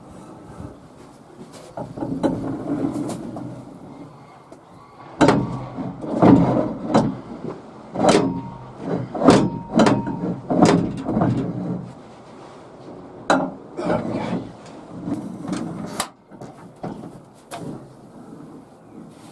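Home-made steel bike rack being slid and worked in a pickup bed, with a run of scrapes and knocks as the bare lower end of its support bar drags and digs into the bed tray. The bar has no wheel fitted yet.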